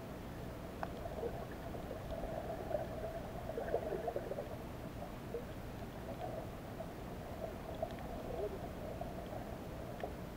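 Muffled underwater sound heard through a camera's waterproof housing: a steady low hum with a wavering murmur of water and a few faint clicks.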